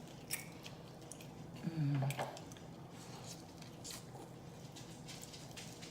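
Close-miked chewing with wet mouth clicks and lip smacks, and a short hummed "mm" about two seconds in.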